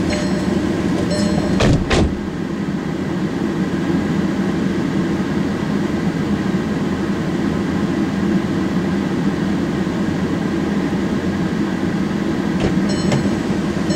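Steady running hum of a parked car, heard inside its closed, empty cabin. A car door thuds shut about two seconds in, and the hum is a little quieter after it.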